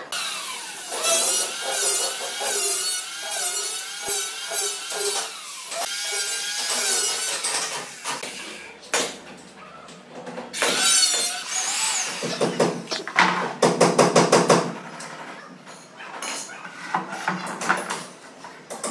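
Electric power tools working wooden stair treads: a motor whines with a wavering pitch under load for the first several seconds, then comes a burst of noise and a run of quick knocks, with scattered clicks and clatter near the end.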